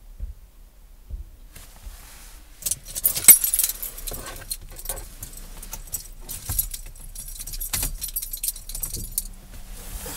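A bunch of keys jangling and clinking, starting about a second and a half in, loudest about three seconds in, then going on in smaller rattles.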